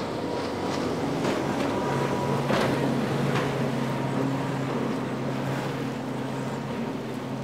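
Single Yamaha 200 outboard on a Bennington pontoon boat running at speed, a steady engine drone. The pontoons splash through the chop, with wind noise.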